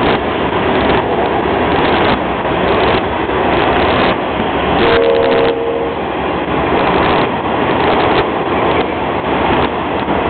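Freight train cars rolling past: a loud, steady rumble and rattle of steel wheels on rail, with clacks about once a second as wheel sets cross rail joints. A brief steady tone sounds about five seconds in.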